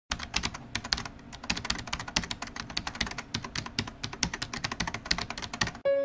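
Rapid typing on a keyboard: an irregular stream of sharp key clicks, several a second, that stops abruptly right at the end as music comes in.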